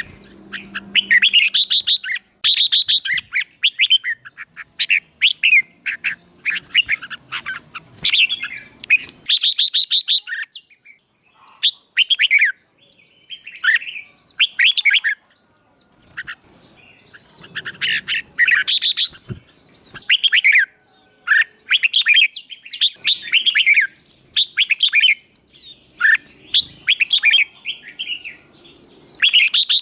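A songbird singing loudly and continuously in quick, repeated chirping and warbling phrases with short pauses between them.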